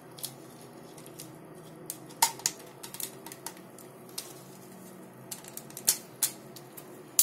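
Scattered clicks and light knocks of a homemade airsoft rifle's hard plastic and metal parts being handled and fitted together by hand, the sharpest few in pairs about halfway and near the end.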